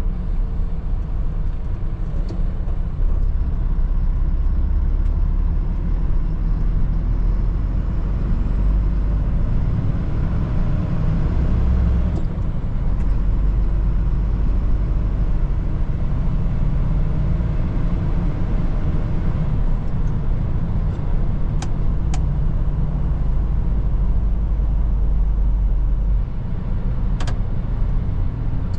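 Mercedes-Benz Atego truck's diesel engine and road noise heard from inside the cab while driving: a steady low rumble, with a few short sharp clicks late on.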